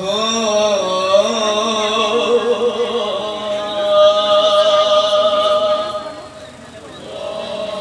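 A male nasyid group singing in harmony, with a wavering phrase and then a long held note that fades about six seconds in before the next phrase begins near the end.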